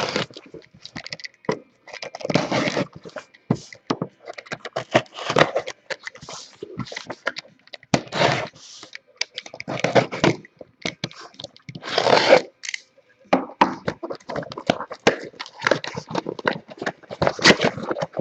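A sealed cardboard inner case being opened by hand: packing tape and wrap tearing, and cardboard scraping and crackling in irregular bursts.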